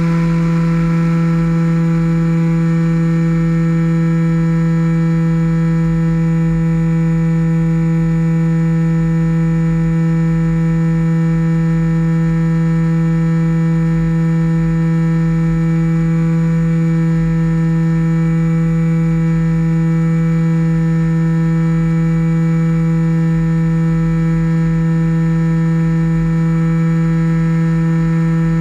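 RC model plane's motor and propeller running at a steady throttle in flight, holding one even pitch, heard from on board with low wind rumble on the microphone.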